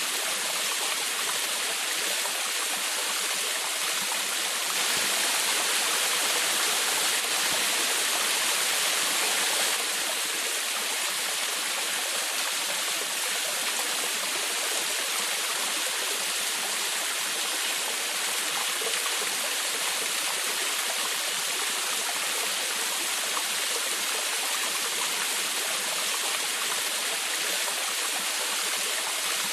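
Small forest waterfall splashing and rushing steadily, with an even, continuous sound of falling water.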